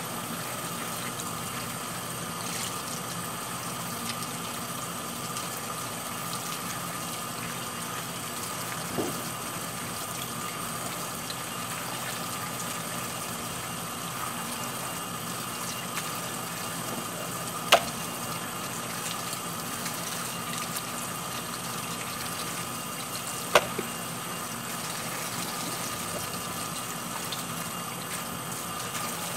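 Kitchen faucet running steadily onto a sink full of small green lemons as gloved hands rub and rinse them under the stream. Two sharp clicks stand out in the second half.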